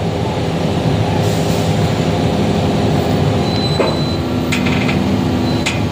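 Hitachi hydraulic excavator's diesel engine running under load as it lifts the front of a truck, its note shifting about four seconds in. A few sharp knocks follow near the end.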